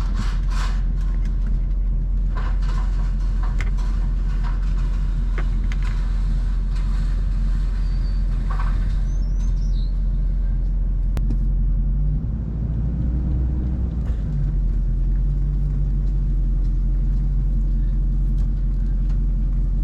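Pickup truck engine running steadily at low speed while towing a hay baler, heard from inside the cab, with a few knocks in the first few seconds and a change in the engine note about twelve seconds in.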